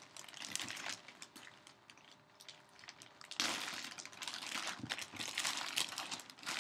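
Plastic packaging crinkling and rustling with scattered small clicks as a trading card is handled, louder again from about three and a half seconds in.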